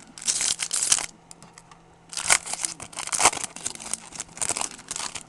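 Foil wrapper of an Upper Deck baseball card pack being torn open and crinkled. There is a short bout of crackling tearing about a quarter second in, then a longer stretch of tearing and crinkling from about two seconds in.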